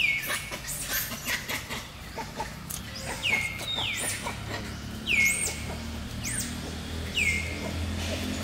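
A series of thin, high-pitched whistled calls from an animal, about one a second from a few seconds in. Some drop steeply and level off, others arch up high and come back down. Scattered light clicks and rustles come in the first two seconds.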